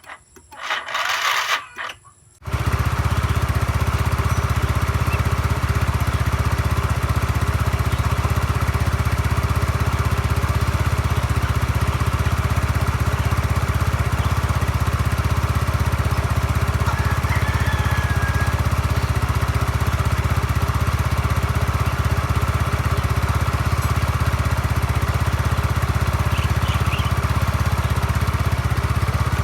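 Yamaha Mio Sporty scooter's single-cylinder four-stroke engine, hard to start: a few short noisy bursts of cranking, then it catches about two and a half seconds in and keeps running steadily.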